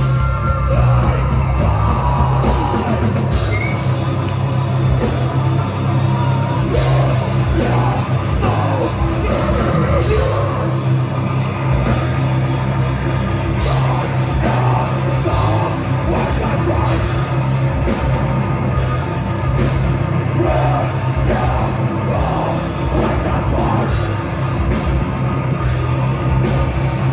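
Live heavy metal band playing: distorted electric guitars, bass and drums, with a vocalist yelling into the microphone over them.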